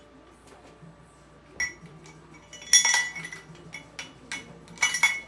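A spoon clinking against a cup in a few separate strikes, the loudest cluster about three seconds in and another near the end.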